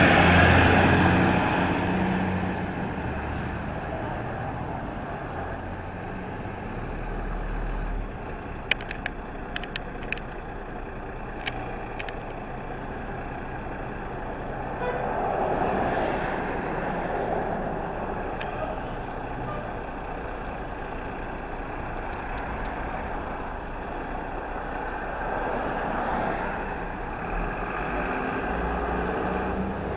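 Fire trucks' engines: a pumper tanker passes close and fades within the first couple of seconds, then a tanker truck runs slowly as it pulls out of the firehouse bay, its engine swelling a little now and then. A few sharp clicks come about nine to twelve seconds in.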